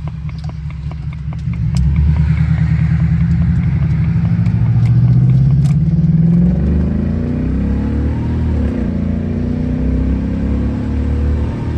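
Supercharged V8 of a Jaguar XJR accelerating hard out of a turn, on a test drive after an injector swap to cure a misfire. The turn signal ticks through the first couple of seconds. About two seconds in the engine gets louder and its pitch climbs, drops at a gear change about six and a half seconds in, then climbs again.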